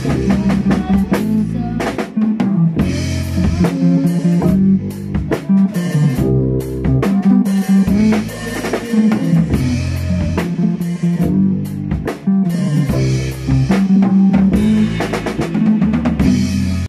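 A rock band rehearsing live: an electric bass playing a repeating low line under a drum kit groove of kick, snare and cymbal hits.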